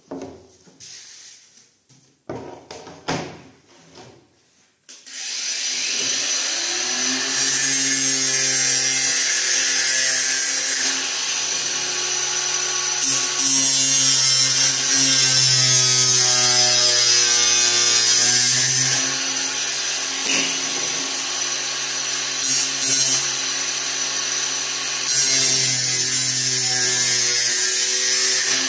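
A few knocks as a decorative wood-effect panel is handled. About five seconds in, a handheld power tool starts and runs steadily, cutting the panel: a motor hum under a loud, high cutting noise that rises and falls slightly as the cut goes on.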